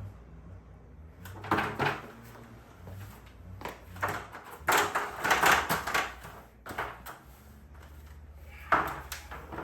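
Irregular metal clunks and scraping as parts are slid and handled along a garage door's torsion spring bar, with a longer scraping rattle near the middle and a sharp knock near the end, over a steady low hum.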